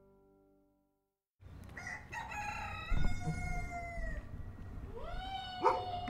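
Guitar music fades out, and after a brief gap a rooster crows twice, each crow a long drawn-out call of about two seconds. Two sharp knocks come in between.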